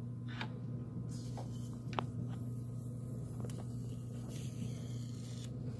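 A steady low hum, with a few faint clicks and taps, the clearest about two seconds in.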